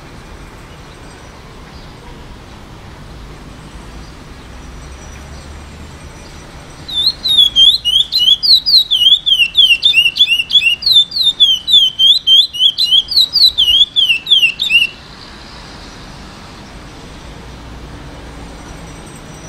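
An eight-month-old curió (chestnut-bellied seed finch), still in brown juvenile plumage, sings a fast run of short rising and falling notes, about four a second, for some eight seconds starting about seven seconds in. It is a young bird only beginning to sing, working toward the praia grande song.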